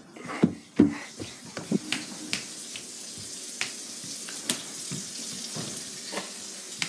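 Water running steadily from a tap into a sink, with scattered light clicks and knocks.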